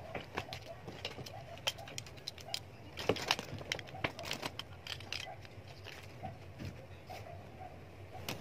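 Irregular rustling and small clicks and knocks of a bag and small items being handled and packed by hand.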